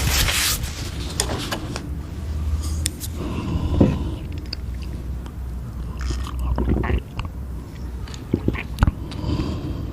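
Close-miked chewing and biting of chewy food, scallop skirt or boneless chicken feet, with scattered sharp clicks and wet mouth sounds. There is a brief burst of noise at the very start.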